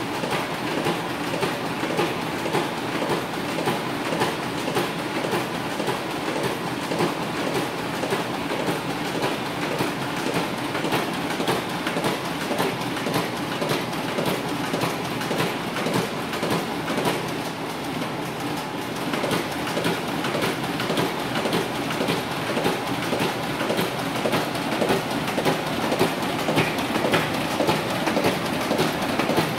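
Welltec MailFinisher 120C pressure sealer running inline with an Epson WorkForce printer, feeding, folding and pressure-sealing printed sheets. A steady mechanical running noise with rapid, even clicking and clacking.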